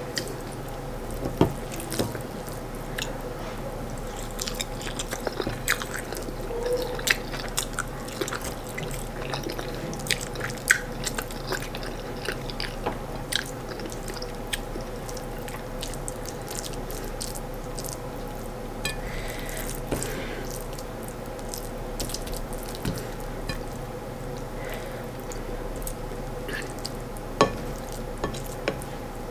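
A person eating corn fufu and stewed chicken, close to the microphone: wet chewing with many short, scattered mouth clicks and smacks. A steady faint hum runs underneath.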